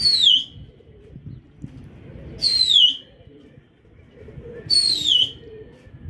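A shrill whistle sliding down in pitch, repeated three times at even intervals of about two and a half seconds, each note identical and about half a second long.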